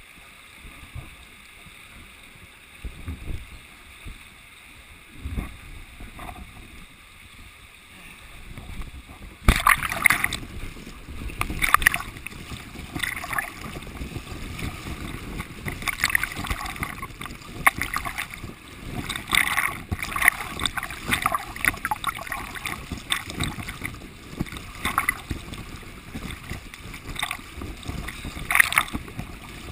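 Fast-moving river water washing and splashing over a camera held at the surface. The first third is muffled with a few low bumps; then the sound turns abruptly into constant rushing water with frequent sharp splashes against the lens.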